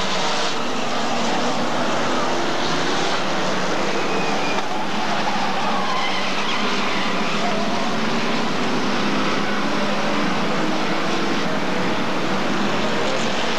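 Engines of a pack of Hot Stox oval racing cars running at speed around the track, several engines blending into one steady noise.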